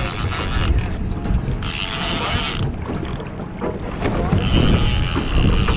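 Conventional saltwater fishing reel being cranked in about three short spells with pauses between them, its gears whirring, as a hooked fish is reeled up against a bent rod. Wind and a low rumble of boat noise run underneath.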